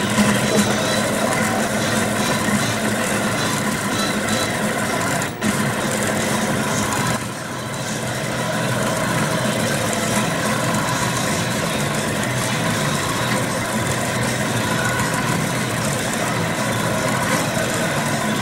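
Rostock delta 3D printer running a print: its stepper motors whine in several steady tones as the carriages move the print head, over a constant fan hum. The sound breaks off briefly about five seconds in.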